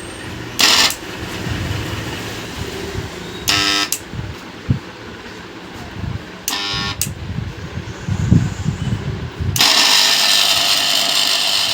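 Mixer grinder motor switched on near the end, running with a loud, harsh noise: the sign of a worn-out bush (bushing) in the motor. Before it, two short horn honks.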